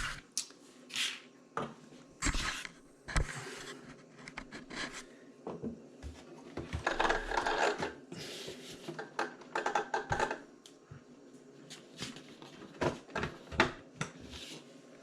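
Hands fitting RC truck wheels: scattered clicks, taps and rubbing of small hard parts, with a longer rattling stretch a little past the middle and a few sharp taps near the end.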